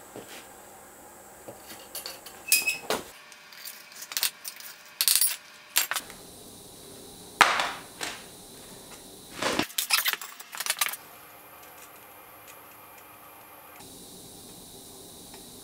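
Metal tools and equipment clinking and knocking in short, scattered clusters of sharp strikes, with quiet stretches between them and the background changing abruptly several times.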